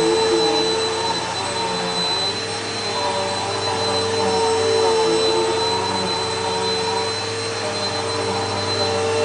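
Bissell PowerForce Helix 1240U bagless upright vacuum cleaner running: its eight-amp motor gives a steady airy whine with a high-pitched tone on top. The level swells and eases slowly every few seconds.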